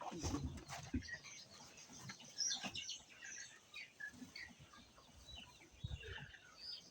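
Chickens clucking and chirping faintly, with a few soft knocks.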